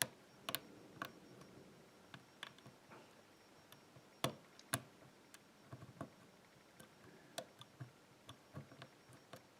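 Faint, irregular small metallic clicks and ticks of a lock pick working the pin stacks inside an old Yale six-pin rim cylinder held under tension. The sharpest clicks come right at the start and around four to five seconds in.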